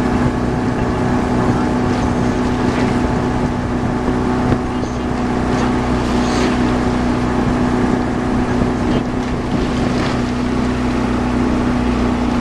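Motorboat engine running at a steady speed, a constant even hum with wind on the microphone.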